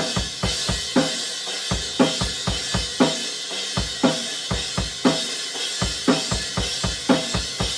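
Full drum kit played in a driving rock beat, with fast bass-drum strokes and snare hits under a constant wash of ringing cymbals from the Zildjian A Custom 19-inch Crash (Brilliant version), accented about once a second.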